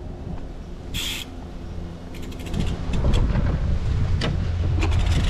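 BMX bike's rear hub ticking in quick runs of clicks as the bike is wheeled along, starting about two seconds in, over a steady low hum. Wind buffets the microphone in the second half.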